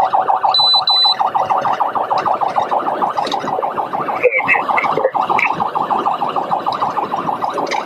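Police car siren on a fast, rapidly repeating cycle, about eight pulses a second, sounding continuously through the pursuit. Two short high electronic beeps come near the start.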